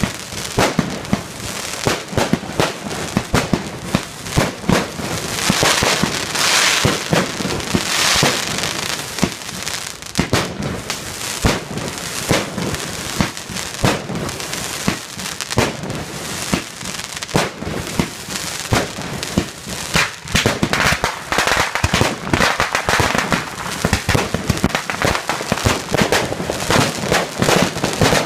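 Aerial fireworks going off in rapid succession, a constant stream of sharp bangs, with bursts of crackling a few seconds in and again past the middle.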